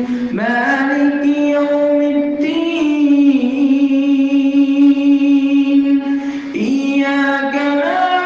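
A single voice chanting a Quran recitation, holding long drawn-out notes that slide to a new pitch a few times.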